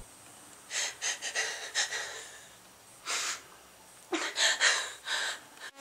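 A woman's frightened, gasping breaths: a few short sharp breaths about a second in, another around three seconds, and a quick run of them from about four seconds in.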